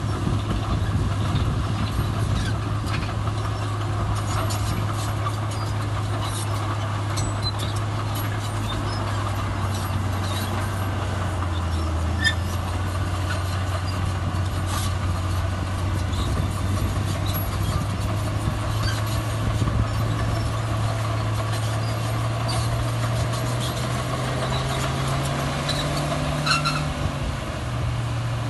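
Heavy diesel earthmoving machinery running steadily under load. Its engine note rises in pitch late on, then drops back, with scattered clicks and clanks over it.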